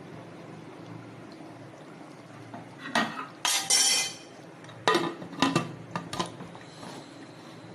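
Metal cookware and utensils clattering: a scraping clatter about three seconds in, then three sharp clinks, over a steady low background noise.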